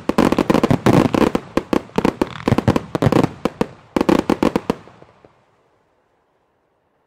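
Fireworks closing barrage: dozens of aerial shell bursts banging in rapid succession. The bangs stop about five seconds in and the sound fades out.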